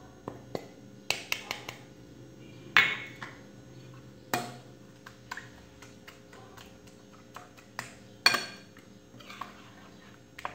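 Metal spoon clinking and scraping against a glass bowl while eggs are mixed, in sharp irregular taps; the loudest clinks come about three and eight seconds in.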